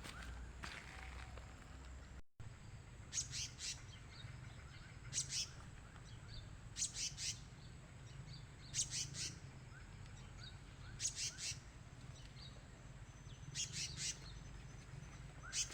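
A bird calling in short bursts of three or four sharp, high chirps, repeated about every two seconds.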